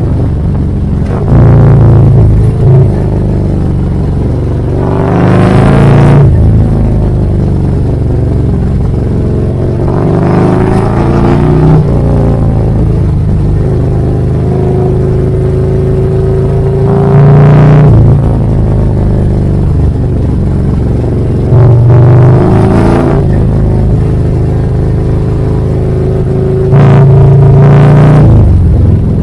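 Motorcycle engine under way on a winding road, the revs rising and falling about five times as it accelerates out of bends and eases off.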